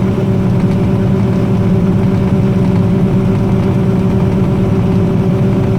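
Combine harvester running steadily: a constant engine and machinery drone with several steady tones.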